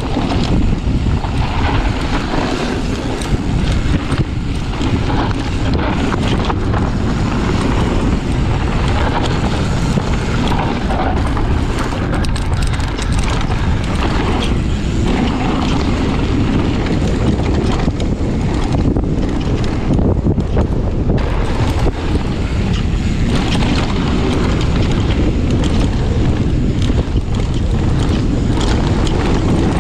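Wind buffeting an action camera's microphone on a mountain bike descent, over a steady rumble of tyres on a rough, stony trail with the bike rattling and knocking.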